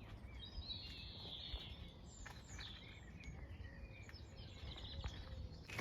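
Faint birdsong: small birds chirping and twittering, with short whistled notes scattered through, over a low steady rumble.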